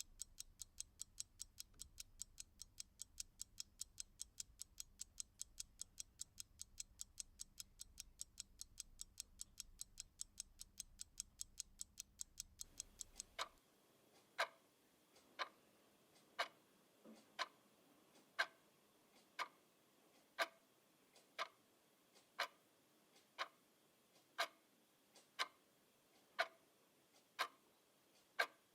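Clock ticking, faintly. At first it is a fast, light tick of about three a second over a low hum. About halfway through, it changes to a slower, louder tick of about one a second.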